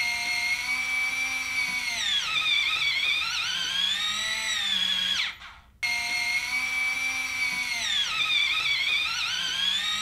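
Nuki Smart Lock 3.0 Pro's electric motor and gearbox whining as it turns the key in the lock. It runs twice for about five seconds each, with a short break in between: first on the metal mounting plate, then on the plastic one. In each run the pitch dips in the middle and comes back up before it stops.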